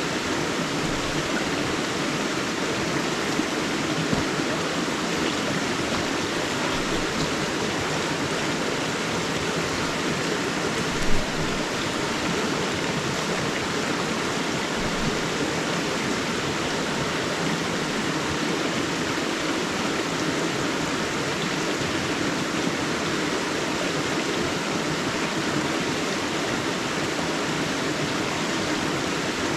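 A forest river rushing steadily over its bed, a continuous even wash of water noise, with one brief louder splash or knock about eleven seconds in.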